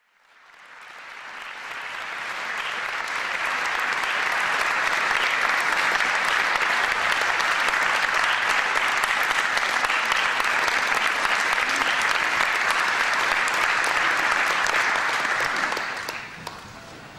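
Audience applauding in a concert hall: dense, steady clapping that builds over the first few seconds and fades out shortly before the end.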